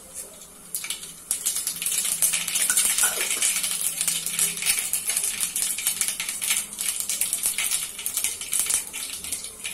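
Mustard seeds popping and sizzling in hot oil: a dense, rapid crackle of pops over a hiss, starting about a second in. This is the tempering stage, before the flame is turned down once the seeds finish popping.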